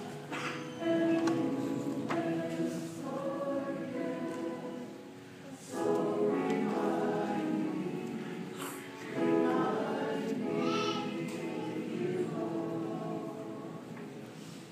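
A small choir singing a slow song in long held notes, each phrase swelling up and then tailing off; new phrases come in about a second in, about six seconds in and about nine seconds in, and the singing fades towards the end.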